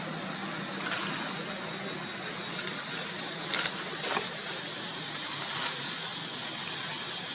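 Steady outdoor background hiss with a faint high-pitched drone, broken by a few brief sharp clicks or rustles, most of them around the middle.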